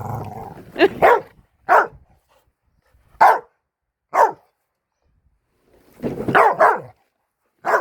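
Blue Staffordshire bull terrier barking at a lawn mower: single sharp barks a second or so apart, then a quick run of several barks near the end.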